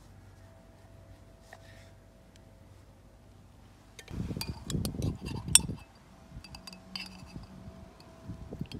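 Quiet knife cuts on a wooden chopping board. About four seconds in come louder handling knocks and the clinking of a metal spork against a glass jar of olives.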